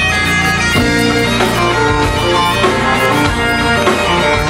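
Great Highland bagpipes playing a tune over their steady drones, backed by a rock band with a drum kit.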